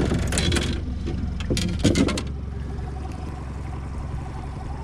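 A boat motor running with a steady low hum, while gear clatters with a quick run of knocks and rattles in the boat for the first couple of seconds, then only the hum is left.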